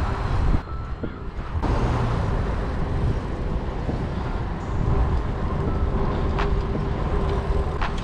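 Steady wind rush on the chest-mounted GoPro's microphone and tyres rolling on asphalt as a mountain bike is ridden, with a few faint clicks later on.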